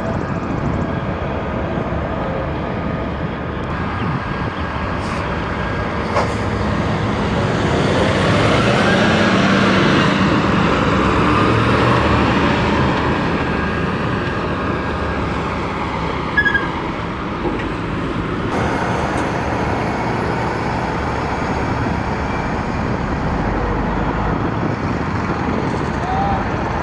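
Heavy trucks and road traffic running, with a tractor-trailer's diesel engine idling close by and louder through the middle. A brief sharp knock comes past the middle.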